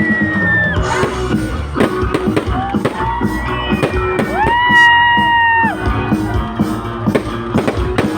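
Loud concert music with a steady drum beat and sustained melody notes, including one long high note held for about a second midway.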